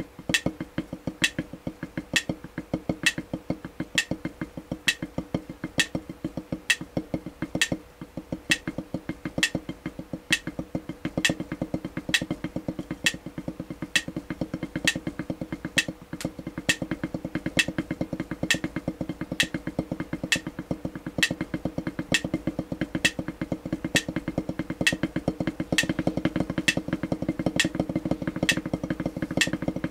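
Drumstick strokes on a rubber drum pad in a fast, steady rhythm, with sharper, louder strokes falling at an even beat.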